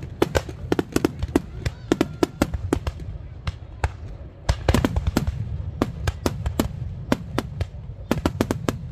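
Aerial fireworks display: a rapid, irregular string of sharp bangs and crackles over a low rumble. The bangs thin out about three seconds in, then come in a dense volley about a second later.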